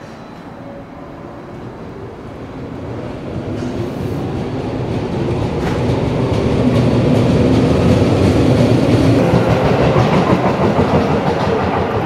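Electric commuter train running on the rails close by, growing louder over the first seven seconds or so and then staying loud.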